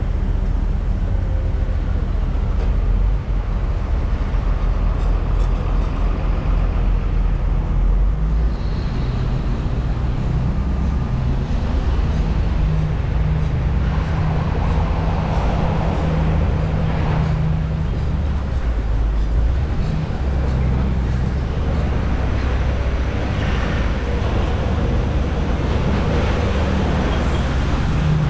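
Hotshot truck driving on the road: a steady low rumble of engine and road noise, the engine note shifting a few times.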